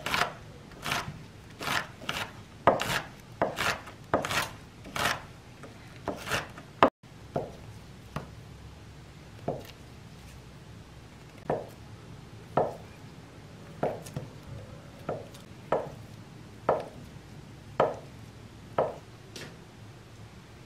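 Chef's knife chopping green chili peppers on a wooden cutting board, sharp strokes a little more than one a second. About a third of the way in the strokes turn softer and duller, about one a second, as the knife slices through a block of Spam down onto the board.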